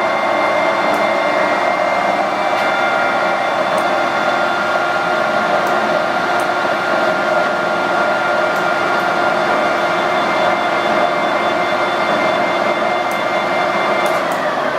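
Victor 1860E gear-head engine lathe running steadily with its spindle at 880 RPM, with a steady gear whine from the geared headstock over the running noise. The pitch sags slightly near the end.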